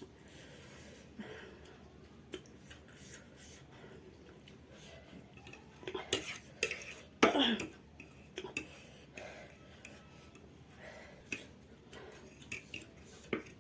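Eating sounds: chopsticks clicking against a bowl and noodles being eaten in scattered small clicks and smacks, with a short vocal sound, falling in pitch, about seven seconds in as the loudest moment.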